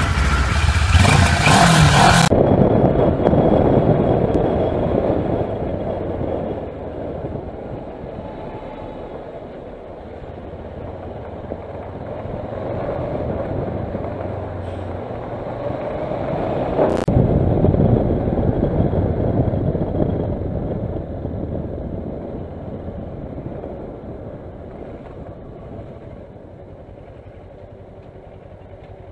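Onboard sound of a Kawasaki Versys motorcycle being ridden in traffic: engine and wind noise swelling and fading as the bike speeds up and slows. It opens with about two seconds of loud hiss, and there is one sharp click about 17 seconds in.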